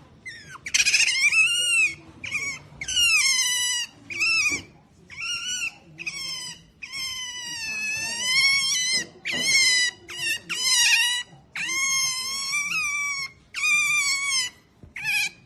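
Otter giving a rapid series of high-pitched squeals and chirps, about a dozen calls that bend up and down in pitch, some short and some drawn out to a second or two.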